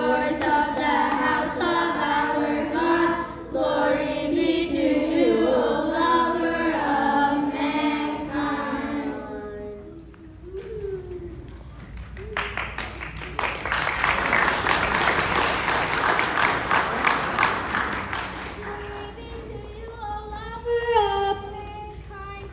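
Children's choir singing, the song ending about nine seconds in. After a short lull the audience applauds for about six seconds, and a voice begins near the end.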